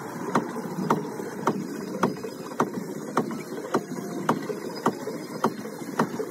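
Boat-ride machinery running: sharp, evenly spaced mechanical clicks about twice a second over a steady hum, heard from a boat on the ride.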